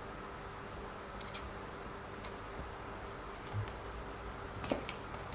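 Scattered light clicks and taps of small plastic RC car suspension parts and screws being handled during assembly, with a louder click near the end.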